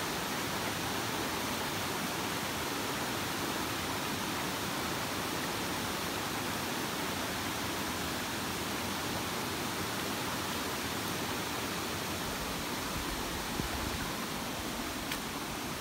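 Steady rushing of flowing river water, an even hiss without change, with two faint clicks near the end.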